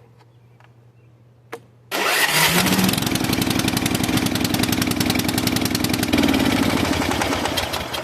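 A click, then about two seconds in a riding mower's engine cranks, catches with a brief rise in pitch and runs at a steady speed; it starts now that the blown fuse that stopped it cranking has been replaced. The engine slows slightly and dies away near the end.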